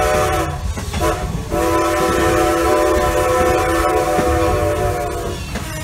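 Steam whistle of Great Western Railway No. 90, a steam locomotive, blowing a steady chord: one blast ends about half a second in, then after a short gap a second long blast sounds for about four seconds, over the low rumble of the train.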